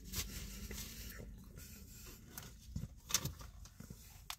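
Faint handling noises: a few soft clicks and light rustles as a plastic drink cup with a straw is picked up and handled.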